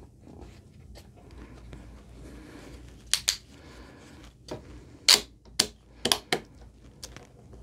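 Quiet handling of a foam board and PVC strip, then sharp plastic clicks: a pair about three seconds in and four more between about five and six and a half seconds, as an orange one-handed bar clamp is fitted over the board's edge and its trigger squeezed.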